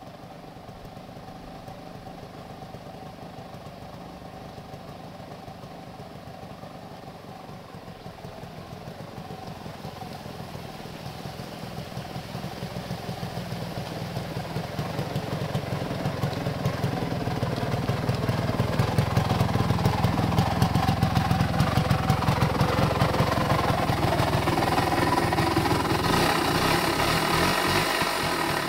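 A B2 125 motorcycle's engine running with a very loud, even pulsing noise from the cylinder, which the owner takes for an abnormal noise. The sound grows steadily louder from about a third of the way in and then holds.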